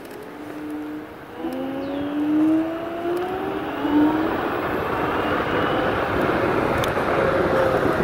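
Electric scooter's motor whine climbing in pitch as it speeds up, under a steadily growing rush of wind and tyre noise.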